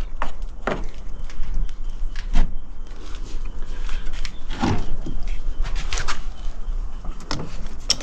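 A series of separate clicks and knocks, a dozen or so at uneven intervals, from handling work on the compressor, over a low steady hum.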